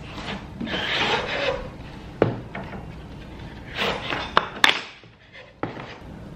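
A slatted wooden bookshelf being pulled and unfolded out of its cardboard packaging: cardboard scraping and rubbing against the wood, with several sharp wooden knocks as the slats bump together.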